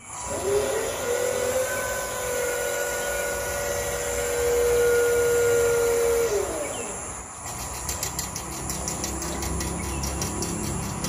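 Homemade radio-controlled crane's drive motor running with a steady whine that rises slightly as it starts and winds down about six seconds in. Then a rapid, even clicking over a low rumble.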